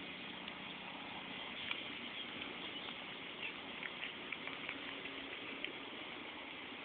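Domestic cat chewing a field mouse: small irregular crunching clicks, a dozen or so, over a steady background hiss.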